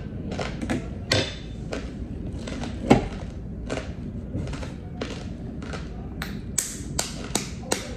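Balut eggshells being tapped and cracked with a metal spoon: a run of sharp taps and knocks, irregular at first and coming faster near the end.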